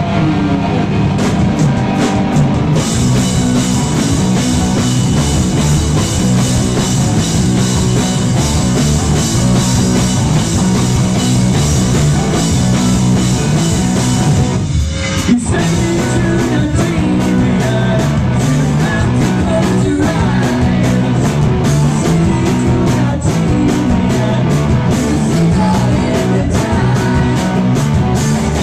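Rock band playing live at full volume: electric guitar and drum kit, with cymbals coming in about three seconds in. The band stops for a moment about halfway, then comes straight back in.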